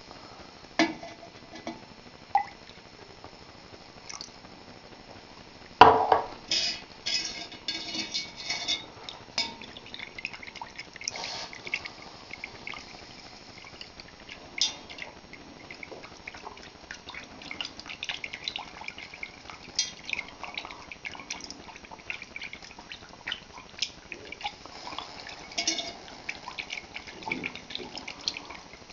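A metal wire stirrer working milk in a large stainless steel pot, with many quick clinks and scrapes against the pot and one loud knock about six seconds in. Liquid splashes and trickles as more is poured into the pot.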